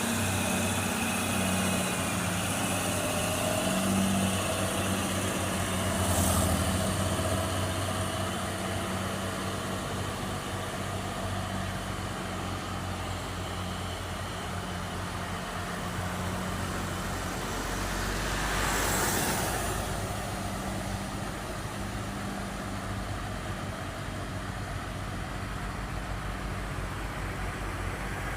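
Heavy diesel engine running steadily at low revs, with brief rushes of noise about six and nineteen seconds in.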